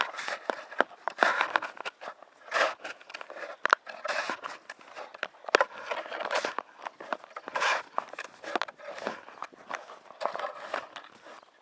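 Snow shovel digging and scraping through deep snow, with crunching footsteps; uneven scoops a second or so apart, some with sharp clicks.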